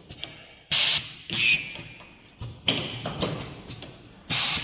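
Automatic micro connector soldering machine cycling: short, sharp hisses of compressed air with clicks and knocks between them, in a pattern that repeats about every three and a half seconds.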